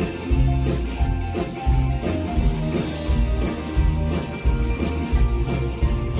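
Live country-rock band playing an instrumental passage: a steady drum-kit beat with cymbal strokes, bass, and strummed and electric guitars.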